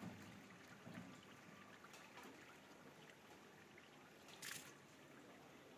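Faint water sounds: a low, steady trickling hiss, with one short splash about four and a half seconds in, as raw chicken pieces are washed by hand in a pot of water.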